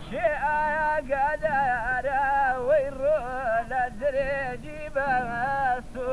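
A man singing a Kurdish folk song solo and unaccompanied, in long wavering, ornamented phrases with short breaks for breath.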